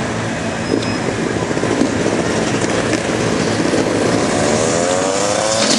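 Motocross dirt bike engine running, then revving up with a rising pitch near the end, over a steady rush of wind on the microphone.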